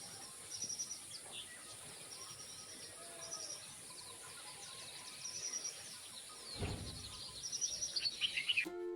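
Birds chirping over a steady background hiss: short, high twittering phrases repeat every second or two. A brief low rumble comes about two-thirds of the way through.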